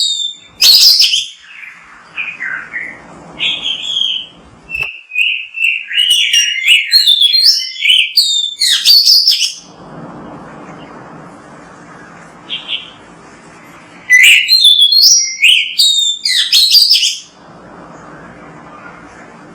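Oriental magpie-robin (kacer) singing: fast, varied phrases of sliding whistles and harsh chattering notes. The song breaks off for a few seconds in the middle and again near the end, leaving a steady background hiss.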